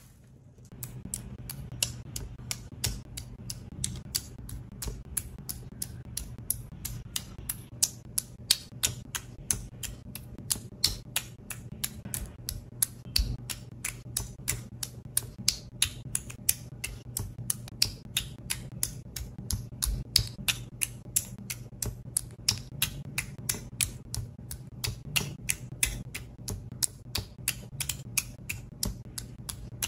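Background music with a fast, steady ticking beat, about four ticks a second, over a low sustained tone.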